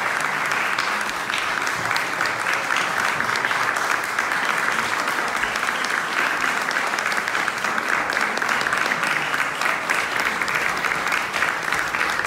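Audience applauding, a steady, dense clatter of many hands clapping with no let-up.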